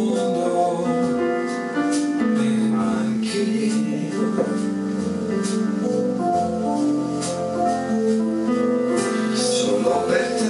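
Electronic keyboards played live with a piano-like sound: held chords under a slow melody line, with light percussive touches.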